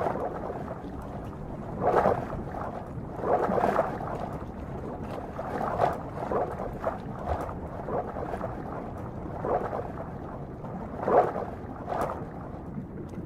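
Water lapping and splashing in irregular surges.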